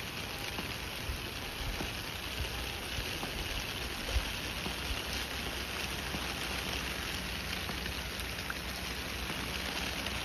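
Heavy rain pouring steadily onto a flooded street, an even hiss of downpour, with one brief thud about four seconds in.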